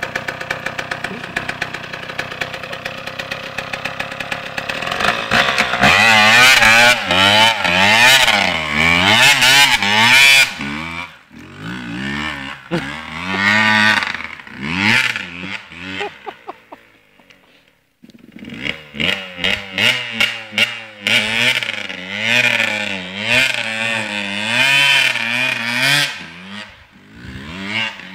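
Enduro motorcycle engine running steadily at idle, then from about five seconds in revving up and down again and again as the bike pulls away. Just past the middle it drops almost to nothing for about two seconds, then the revving up and down comes back.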